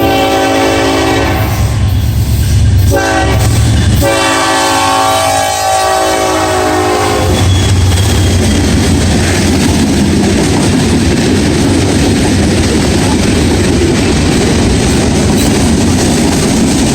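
Freight locomotive's multi-chime air horn sounding a tuned chord in three blasts (long, very short, long), the last one dropping in pitch as the locomotive passes. Then the steady rumble and rail clatter of the freight cars rolling by.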